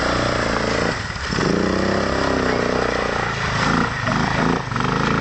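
Quad bike (ATV) engine revving up and down as it is ridden, with brief drops in throttle about a second in and again near the end.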